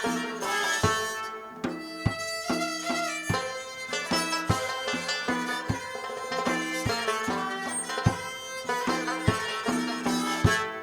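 Traditional Afghan and Central Asian instrumental music: a fast run of plucked rubab notes over a steady hand-drum rhythm.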